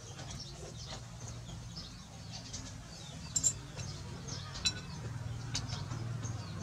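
A few sharp clinks of a metal spoon against a ceramic noodle bowl, about halfway through and twice more later, over faint bird chirps and a low steady hum.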